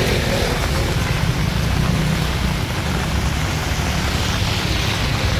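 Rain and traffic on a wet city street: a steady hiss of tyres and rain over a constant low rumble.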